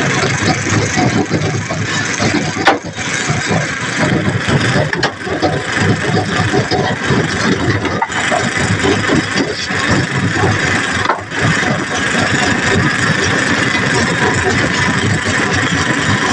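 An engine running steadily and loudly, with a sharp knock about three seconds in and another near the middle.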